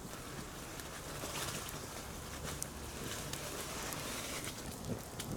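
Campfire crackling faintly with scattered light ticks and pattering over a steady outdoor hiss.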